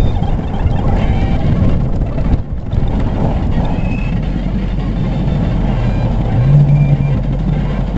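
A Class A motorhome on the road: steady engine and road rumble, with a louder low hum for about half a second near the end.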